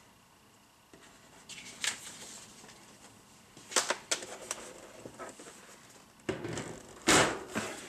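Light handling noises: scattered clicks and rustles as a power cord is picked up and moved. Near the end comes a louder clatter as a plastic paper-shredder head is lowered onto its metal mesh wastebasket.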